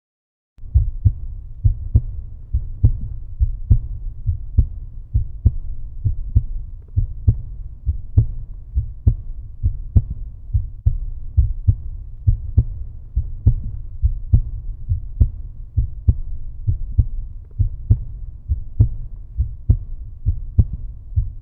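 Heartbeat sound: an even, steady rhythm of low, muffled thuds over a faint low hum, starting about half a second in.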